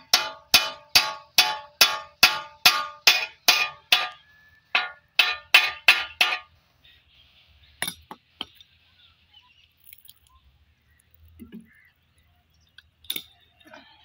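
Hammer blows on the steel blade bolts of a hand-wheel chaff cutter, about two a second with a bright metallic ring, some fifteen strikes with a short pause partway, knocking at rusted nuts that will not turn. A few faint metal clicks follow near the end.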